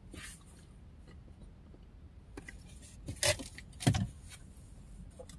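Two short, loud thumps about half a second apart, a little over three seconds in, with a faint click at the very start.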